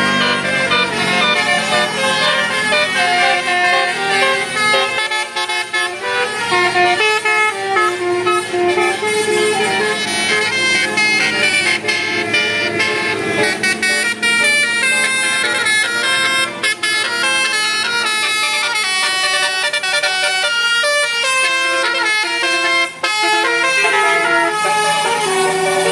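Tourist bus 'telolet basuri' musical air horn playing a melody, its notes changing several times a second.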